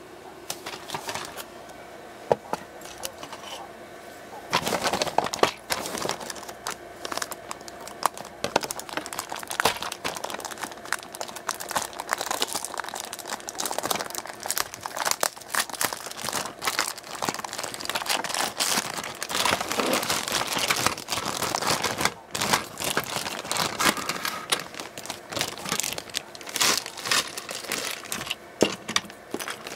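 Thin clear plastic bags crinkling and rustling as plastic toy train cars are handled and slid out of them, with scattered small clicks; the crinkling starts about four seconds in and goes on in irregular bursts.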